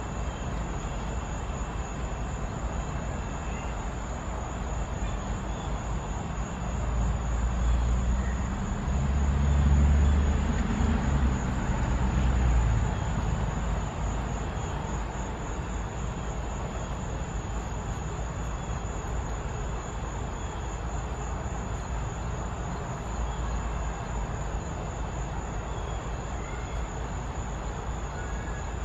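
Low background rumble of distant traffic that swells for several seconds around the middle and then settles back, with a steady high-pitched whine above it.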